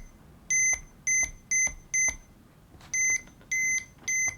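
Fluke 177 digital multimeter's beeper sounding in about seven short, high beeps at uneven intervals, with faint clicks among them. The erratic beeping is the sign of a bad connection inside the meter, which the repairer suspects is at the rotary selector switch.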